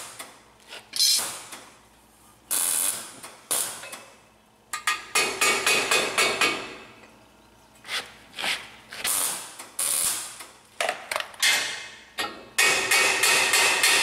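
Hammer knocking on a steel sprocket hub: a string of sharp metal knocks, each ringing briefly, some in quick runs. A short MIG weld tack crackles and stops right at the start.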